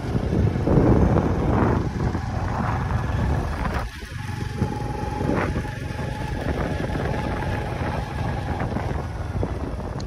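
Small commuter motorcycle running along a paved road, heard from the rider's seat with a heavy rush of noise. A faint steady whine joins in about four seconds in.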